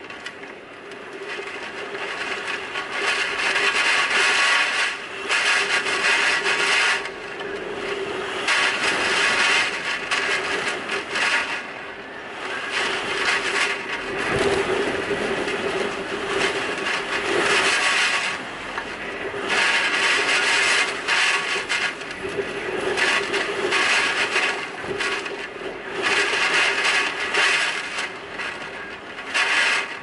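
Typhoon wind and driving rain, with the wind gusting in loud surges of a few seconds each and easing between them. A faint steady low tone runs underneath.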